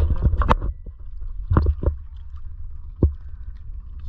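Sharp splashes and knocks at a small wooden outrigger canoe as a hooked halfbeak is brought in: a quick cluster at the start, two more about a second and a half in, and a single one about three seconds in, over a steady low rumble.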